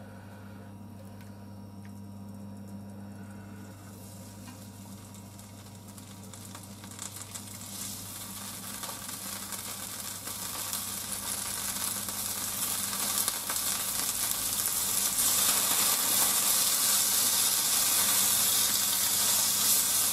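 Blanched pork slices sizzling in a frying pan as they are added with chopsticks. The sizzle is faint at first, builds through the middle and is loudest near the end, with a steady low hum underneath.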